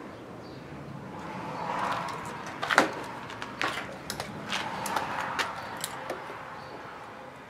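Handling noise from a handheld multimeter and its probe leads: a swell of rustling, then a run of sharp clicks and clatters, the loudest about three seconds in.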